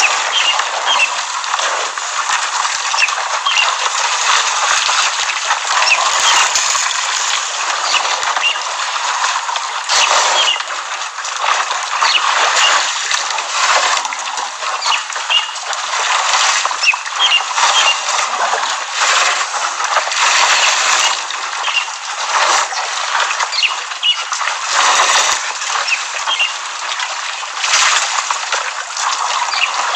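Waterhole ambience: a steady, uneven rushing and splashing of water, with small birds chirping briefly over it.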